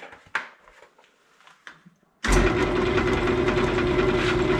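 Jet JWL-1236 wood lathe running with a cypress bowl blank spinning on it. It is a steady motor hum with a fast, even rattle, and it starts abruptly a little after two seconds in, after a nearly quiet stretch with a few faint clicks.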